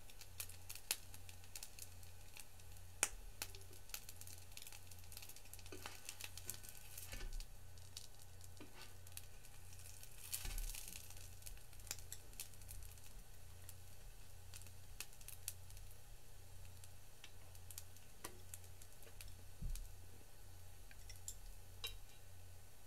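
Rice balls frying in an electric skillet: faint, steady sizzling with scattered small crackles and ticks, over a low hum.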